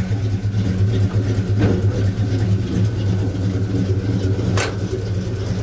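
Pickup truck engine idling steadily, with two brief clicks, one about a second and a half in and one near the end.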